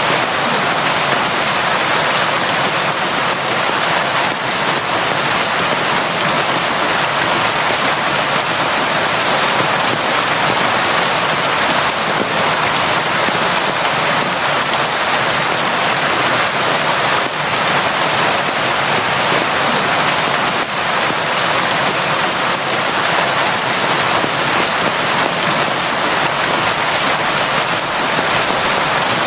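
Steady, constant rain falling on surfaces: a dense, even hiss with scattered drop ticks and no let-up.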